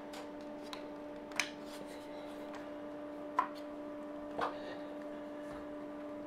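A few faint plastic clicks and taps, spread a second or two apart, as a plastic trim cover is pushed and worked onto a ceiling TV mount's bracket over the bolt heads. A steady hum runs underneath.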